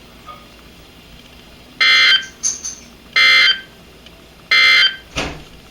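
Emergency Alert System end-of-message signal: three short bursts of digital SAME data tones, a little over a second apart, marking the end of the alert broadcast.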